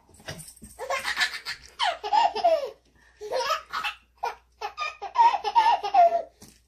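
Baby belly-laughing in repeated fits, several bursts of laughter with short breaks between them.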